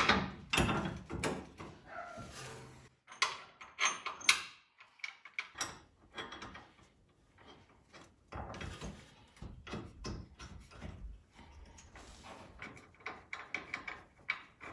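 Steel fifth-wheel hitch frame bracket and its bolts and nuts being handled and fitted against a pickup truck's frame: irregular metallic clinks, knocks and scrapes, with a couple of short pauses.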